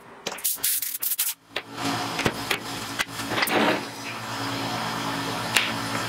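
Small handheld electric grinder working steel plate. There are short, sharp grinding bursts in the first second and a half, then the motor runs steadily with a few sharp scrapes against the metal.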